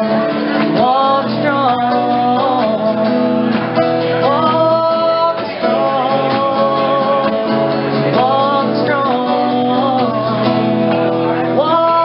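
A woman singing live into a microphone, accompanied by a strummed acoustic guitar, with several long held notes.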